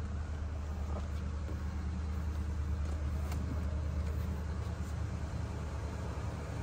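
A 1978 Cadillac Coupe DeVille's V8 idling as a steady low hum, with a couple of faint light clicks.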